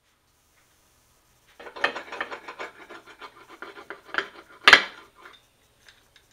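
A metal pizza cutter rolling and scraping across a pizza on a tray, a fast run of crackly scratching clicks, then two sharp clacks of metal on the tray, the second the loudest.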